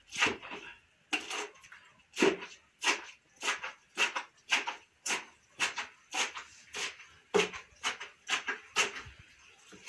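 Wooden pole plunged again and again into a wooden crusher box of grapes, mashing them: a steady run of knocks, a little under two a second.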